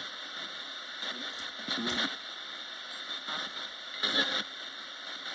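Roberts radio used as a spirit box, sweeping through stations: steady static hiss broken by short snatches of broadcast sound, about three times.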